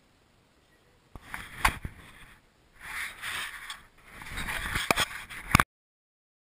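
Handling noise on an action camera: fingers rubbing and scraping on the housing in three bursts, with several sharp clicks, then the sound cuts off suddenly as the recording stops.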